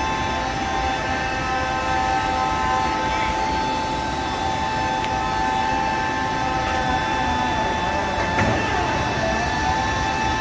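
Steady machine whine with several fixed tones over a rushing noise, from the hydraulic power running an Airbus A320's landing gear swing test. The pitch dips and recovers briefly near the end.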